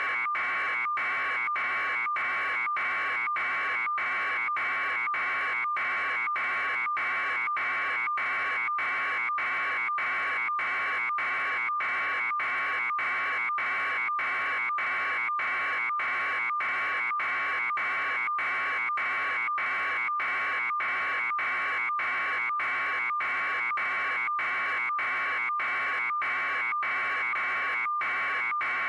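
A continuous harsh, high-pitched buzz at a steady level, broken by brief gaps about twice a second.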